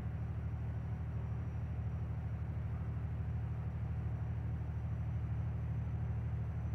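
Sewing machine running steadily, stitching a straight seam through fabric with a rapid, even rhythm of stitches over a low hum.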